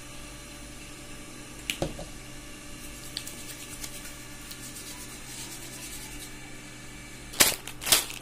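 Steady low room hum with a sharp click about two seconds in; near the end, a Wai Wai instant-noodle packet's plastic wrapper crinkles loudly as it is picked up and handled.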